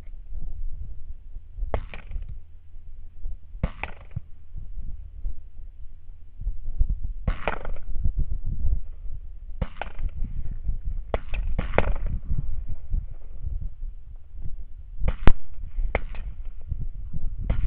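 Rifle shots from two hunters firing in turn, about nine sharp reports at uneven intervals, the loudest near the end, over a steady low rumble.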